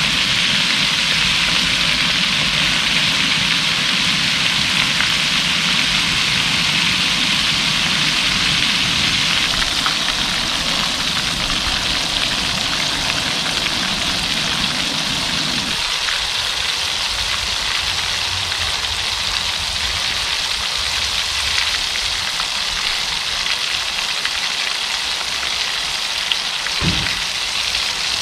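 Food frying in deep hot oil in a cast-iron skillet: a loud, steady sizzle. A low rumble underneath stops about halfway through, and there is a soft knock near the end.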